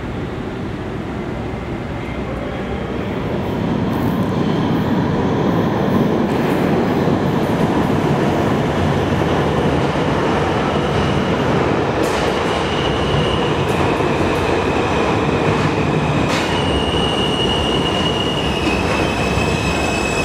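New York City subway train pulling into an underground station: a loud running rumble of the cars that builds about three seconds in. From about twelve seconds in, high steady squeals of steel wheels on the rails join it, with a few sharp clicks.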